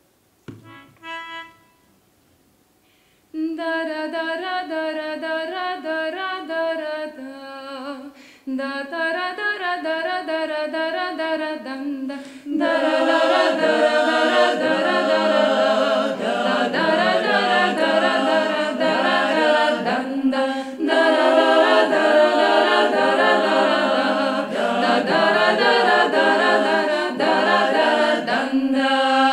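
Women's klapa group singing a cappella in close harmony. Two short notes sound about a second in, the singing begins about three seconds in, and it grows louder and fuller about twelve seconds in.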